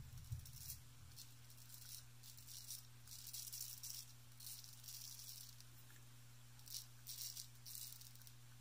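Wade & Butcher 7/8 full-hollow straight razor scraping through lathered stubble on the neck: a series of short, scratchy strokes, each under a second, over a faint steady hum.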